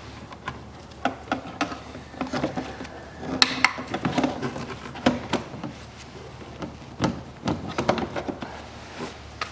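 Corrugated plastic air intake duct being worked onto its fittings by gloved hands. The sound is an irregular string of plastic knocks, clicks and rubbing, loudest about three and a half seconds in.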